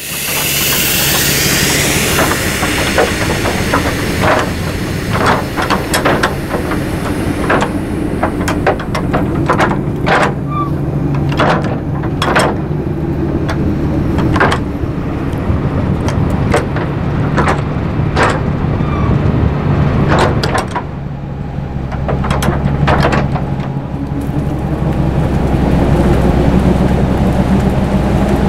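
Rotary snowplow train's engine running steadily, with a hiss fading out at the start and many sharp clicks and knocks over the running. About 21 seconds in, a deeper rumble comes in and the running grows louder.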